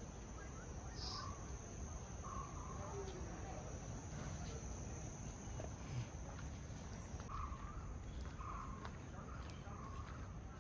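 Insects droning steadily on one high-pitched note, over a low rumble.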